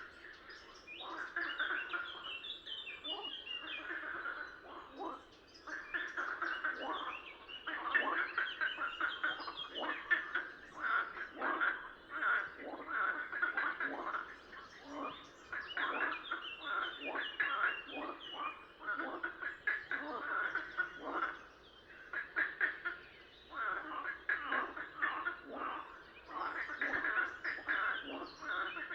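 A chorus of frogs croaking, many short rattling calls overlapping in a dense, continuous run that swells and dips every few seconds.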